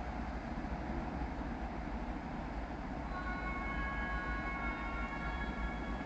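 A distant train approaching, with a steady low rumble. About halfway through, a high squeal made of several steady tones sets in and holds.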